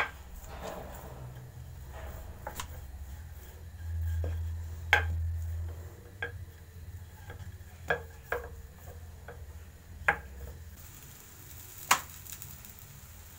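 Wooden rolling pin working thin samosa pastry on a floured worktop: soft rolling, broken by sharp knocks and clacks as the pin is lifted and set down, about once every second or two. A louder clack comes near the end.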